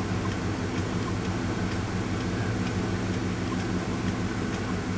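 A steady machine hum with several low steady tones, and faint regular ticking over it.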